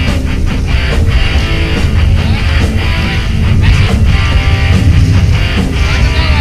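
Background rock music with guitar, loud and continuous.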